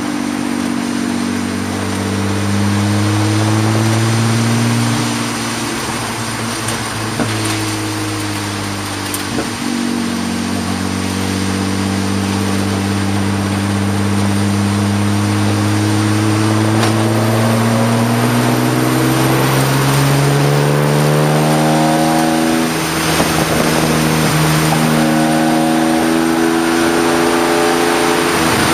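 Race car engine heard from inside the cockpit, accelerating hard through the gears. Its pitch drops at upshifts about five and nine seconds in, then rises slowly in a long pull down the straight, with another shift a few seconds before the end, over a steady rush of wind and tyre noise.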